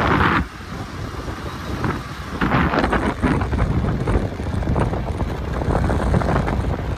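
Wind rushing over a phone microphone on a moving motorbike, with road and engine noise underneath. It is loud at the very start, eases for about two seconds, then picks up again.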